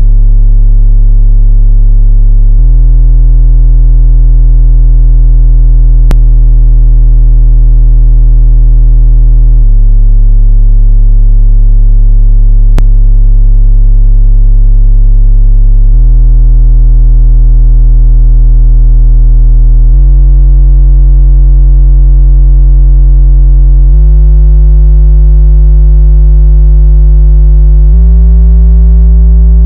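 Loud, sustained electronic drone of low pitched tones that shift in abrupt steps every few seconds and climb in pitch toward the end, with two brief clicks partway through.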